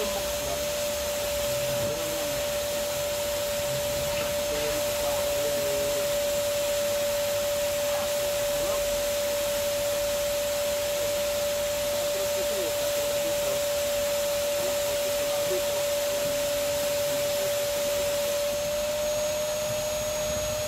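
Vacuum cleaner running steadily with a constant whine over a rushing hiss, cleaning the inside of a car.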